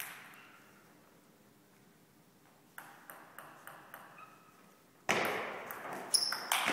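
Table tennis rally: after a quiet pause the ball clicks back and forth off the table and the paddles, several sharp ticks. Near the end comes a much louder burst of noise with a sharp crack.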